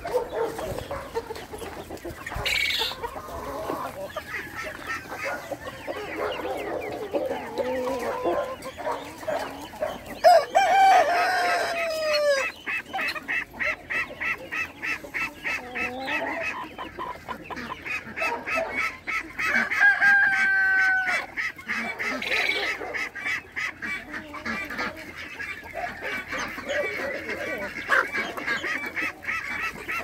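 A flock of free-range chickens clucking and calling, with a rooster crowing about ten seconds in. A fast run of repeated calls follows through the middle.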